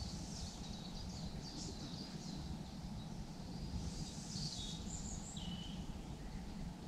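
Birds chirping and calling over a low, steady rumble of outdoor background noise, with a few short whistled notes about four to five seconds in.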